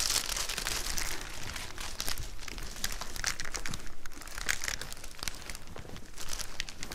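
Paper packing rustling and crinkling as wrapped artworks are handled and lifted from a crate: a dense run of crinkling in about the first second, then scattered short crackles.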